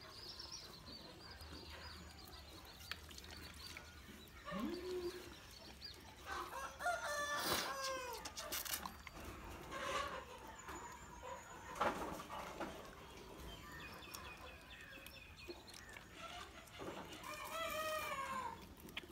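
A rooster crows twice, each crow a long call of about two seconds. Shorter fowl calls come in between.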